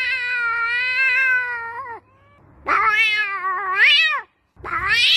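Domestic cat meowing in long, drawn-out calls: one held for about two seconds, a second that rises in pitch at its end, and a third starting near the end.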